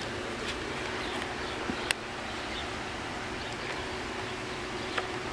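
Waterfall pouring steadily, a constant rushing of falling water, with a few sharp clicks, the loudest about two seconds in.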